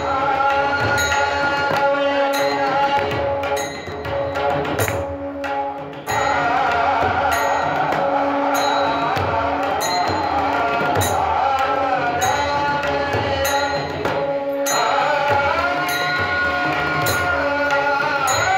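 Devotional bhajan music: a singing voice over held instrumental notes and a steady percussion beat, with a brief softer passage about a third of the way in.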